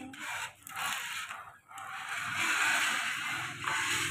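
Plastic toy tractor handled and its wheels rolled and scraped over a hard wooden floor, in a few rough, hissing strokes, the longest in the middle.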